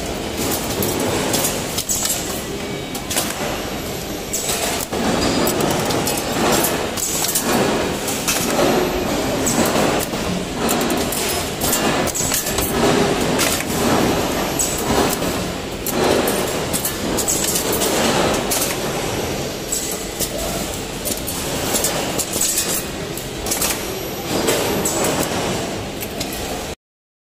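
CNC wire bending and punching machine running as it forms metal trash-can support rods: continuous mechanical clatter with repeated sharp strikes roughly once a second. The sound cuts off suddenly near the end.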